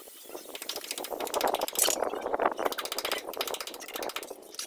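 A hand scraper or putty knife scraping in quick strokes over a plastered ceiling or wall, a fast rattling scrape that is loudest about two seconds in.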